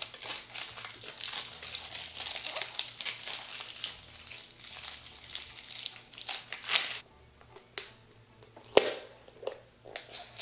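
Plastic packaging crinkling and tearing as a surprise egg's wrapping is pulled open by hand. Near the end it turns to a few scattered handling clicks, with one sharp click.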